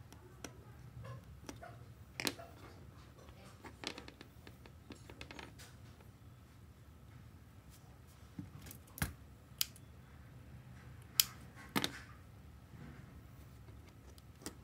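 Hands handling wires, a screwdriver and scissors on a cutting mat: scattered light clicks and taps, with a few sharper clicks, the loudest about two-thirds of the way in.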